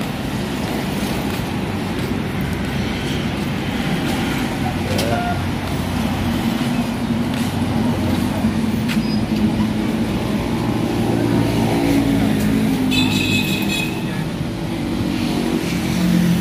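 Motor vehicle engine and traffic noise running steadily, the engine note rising and falling through the middle, with a brief high squeak near the end.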